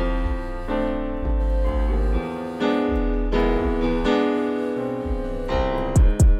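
Background music: electric piano chords over a deep bass, changing about once a second, with two short falling bass thumps near the end.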